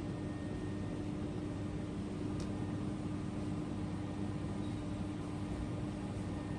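Steady machine hum: a constant low tone over an even hiss, unchanging, with one faint tick about two and a half seconds in.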